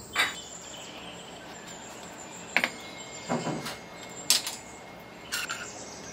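Spoon spreading sauce over a chapati on a steel plate: a few separate light clicks and scrapes of the spoon against the plate, over faint steady background noise.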